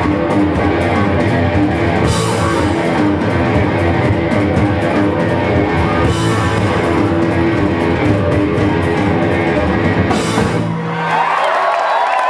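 Live punk rock band with electric guitar, bass and drums playing loudly. The song stops abruptly about eleven seconds in, and the crowd cheers and whistles.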